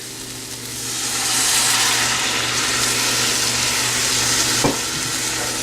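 Tamarind extract poured into a hot pan of sautéed onion, tomato and spice masala, sizzling; the sizzle builds over the first second or two and then holds steady. One brief knock near the end.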